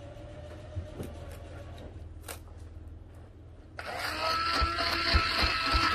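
An immersion (stick) blender stirring thick, cooking hot-process soap paste in a steel pot: a few light knocks at first, then about four seconds in the motor switches on and runs with a loud, steady whirr.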